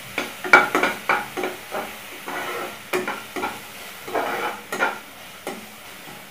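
Slotted steel spatula scraping and stirring chopped onion and green chillies around a kadai in a little hot oil, with repeated scraping strokes about two a second over a light sizzle as they sauté.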